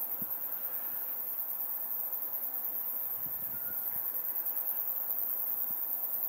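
A steady, very high-pitched insect chorus, an even fast trill that does not let up, over a soft rustle of wind in the bushes.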